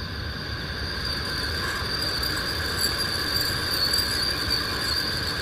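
A steady, shrill insect chorus over background hiss, with two high pitches held throughout and growing a little louder after the first second.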